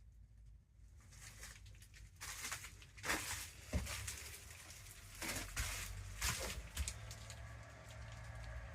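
Rustling and crinkling handling noise with a few sharp clicks, over a steady low hum.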